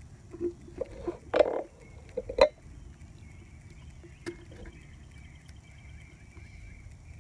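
Scissors cutting through duct tape wrapped on a plastic soda bottle: a few snips and clicks in the first two and a half seconds, the loudest a short crunching cut about a second and a half in and a sharp snip just after. Later a faint, high chirping runs on in the background.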